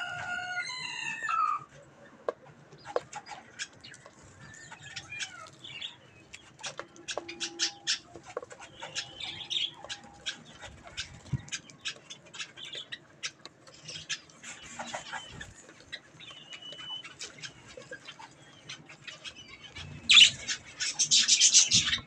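Budgerigars chirping softly while pecking at seed and strawberry, with many small sharp clicks of beaks on seed husks and a short run of calls at the start. Near the end a loud harsh burst rises over them.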